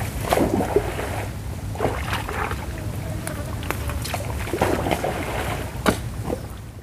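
Wind buffeting the microphone, making a steady low rumble, with scattered short rustles and clicks over it.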